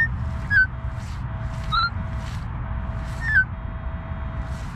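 Minelab E-Trac metal detector sounding about four short target beeps as the coil is swept over an iffy signal; each beep steps down slightly in pitch. Faint swishes and a low rumble run underneath.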